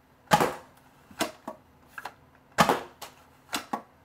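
Homemade PVC pump-action crossbow Nerf blaster being worked: its pump and breech cycled with a series of sharp clacks. The two loudest clacks come about two seconds apart, each followed by a couple of lighter clicks.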